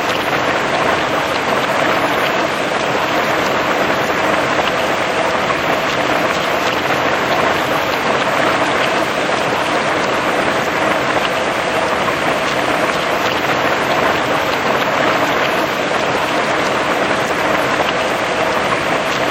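Heavy rain falling on grass and trees: a dense, steady hiss of drops.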